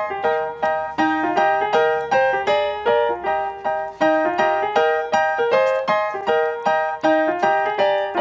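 Background piano music: a light melody of single struck notes, about three a second, each ringing and fading.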